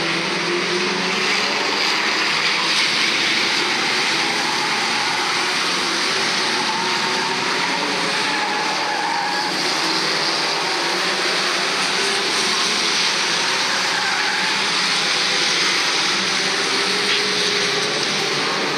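Engines of a pack of old saloon stock cars racing round an oval track, several running and revving at once, their pitches rising and falling as the cars pass through the bends.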